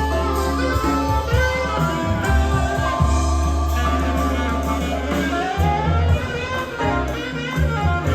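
Music playing from the Akai GX-9 cassette deck: a guitar-led blues piece with a steady bass line.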